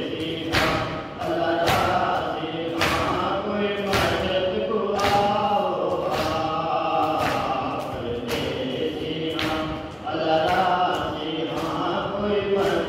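Mourners chanting a noha together in unison, with sharp claps of matam (hand chest-beating) keeping time about once a second.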